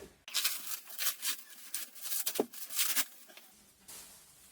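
Rustling and handling of product packaging, a series of short, crackly rustles with a single knock about two and a half seconds in, then quieter.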